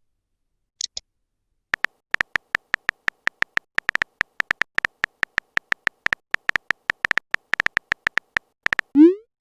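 Phone keyboard typing sound effect: a fast, irregular run of short, identical high beeping taps for several seconds. Near the end comes a quick rising swoop, like a message-sent sound.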